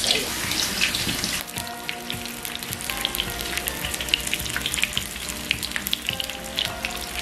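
Breaded chicken cutlets frying in hot oil: a steady sizzle with many small crackles and pops.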